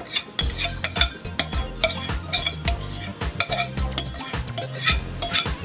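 A utensil scraping and knocking against a bowl as sticky glutinous rice is scraped out into a steamer pot: an irregular run of short clicks and scrapes.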